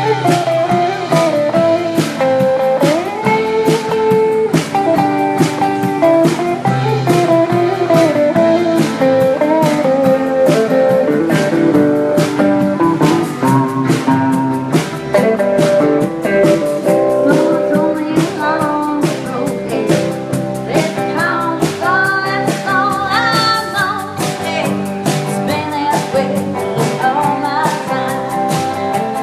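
Live band playing a bluesy song: hollow-body electric guitar with bending lead lines over strummed acoustic guitar and a drum kit keeping a steady beat, with singing.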